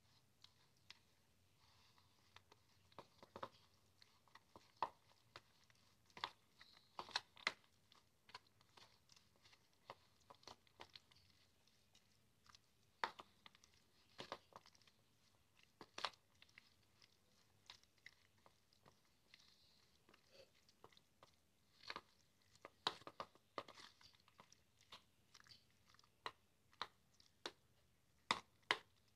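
Metal spoon stirring grated carrot in a creamy dressing in a bowl: faint wet mixing with irregular clicks and taps of the spoon against the bowl.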